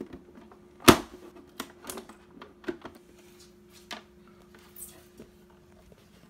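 Handling noise of plastic: scattered light clicks and knocks as the printer's power cable and casing are handled, with one sharp knock about a second in, over a faint steady hum.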